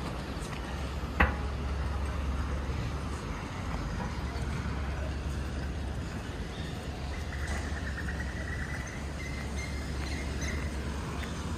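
Outdoor park ambience with a steady low rumble, a single sharp click about a second in, and a faint high trill lasting a few seconds later on.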